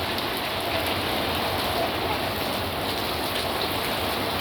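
Heavy rain pouring steadily, an even hiss of water falling on surfaces.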